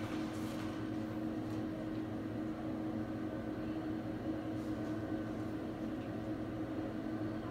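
Steady low electrical hum in a quiet room, with a few faint soft rustles.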